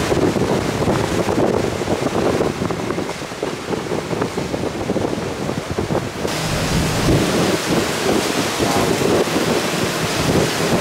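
Hurricane-force wind gusting and buffeting the microphone, with heavy rain. About six seconds in, the sound turns suddenly brighter and hissier.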